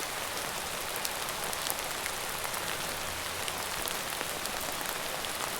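Steady rain falling on a surface: a continuous hiss with many fine, close-spaced drop ticks.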